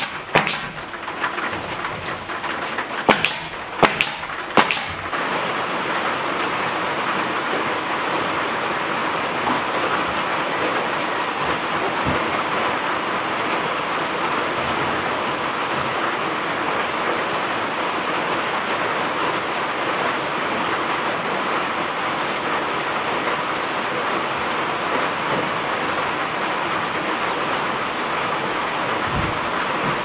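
A nail gun fires several sharp shots into the ceiling boards in the first five seconds. After that comes a steady hiss of rain drumming on a metal roof.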